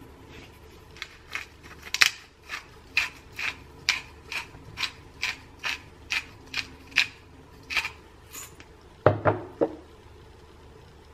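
Hand-twisted pepper grinder grinding black pepper, its mechanism clicking in an even rhythm of two or three clicks a second, followed near the end by a few louder knocks.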